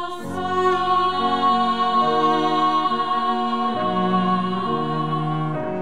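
Women's vocal ensemble singing a slow Korean hymn with cello accompaniment: a high note is held for about five seconds while the lower notes move step by step beneath it, with a brief break near the end.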